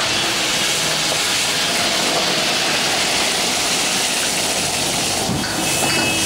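Stir-frying in a wok over a fierce burner: a steady, loud sizzling hiss.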